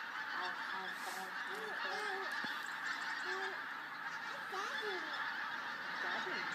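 A large flock of pink-footed geese calling in flight overhead, many short, arching calls overlapping continuously.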